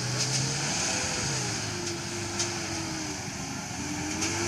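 UAZ Patriot SUV engine running under varying throttle as it drives over rough, muddy ground, its pitch rising and falling, with a few faint clicks.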